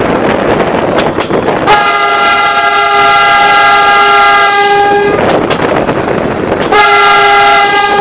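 A DEMU commuter train's horn blows twice, a long blast of about three and a half seconds and then a short one of about a second, over the rumble and wind noise of the moving train.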